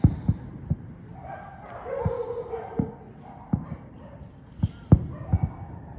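Fireworks bursting: about nine sharp bangs, the loudest ones bunched in the last two seconds, with a dog barking in between.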